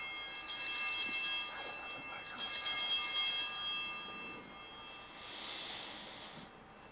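Altar bells rung at the elevation of the consecrated host: two rings of bright, high, shimmering tones about two seconds apart, each dying away slowly, with the ringing faded out by about four seconds in.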